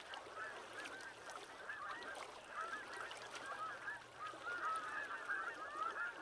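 A flock of birds calling together in a continuous chatter of many short, overlapping arched calls, a little denser in the second half.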